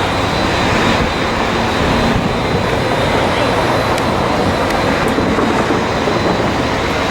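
Jet engines of a taxiing airliner running steadily: an even roar with a faint high whine held throughout.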